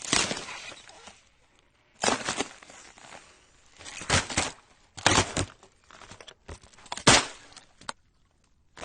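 Heavy footsteps crunching on ice: five steps at uneven intervals of one to two seconds, each a sharp crackling crunch.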